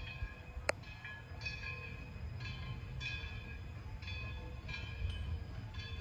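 Train moving on track: a steady low rumble with short high-pitched squealing tones recurring about once a second, and a single sharp click a little under a second in.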